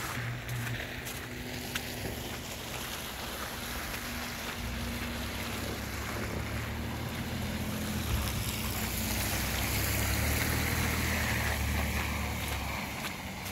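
A vehicle driving by on a wet, slushy street: a low engine rumble sets in about four seconds in and builds, with a rising hiss of tyres on the wet road, then drops away near the end.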